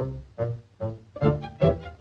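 Background music: a run of short pitched notes, each starting sharply and dying away, about five in two seconds.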